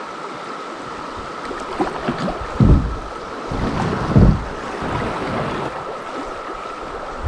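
Shallow river water rushing over a rocky riffle around a drifting kayak, under the steady, even drone of a Brood X 17-year periodical cicada chorus. Two low thumps come about two and a half and four seconds in.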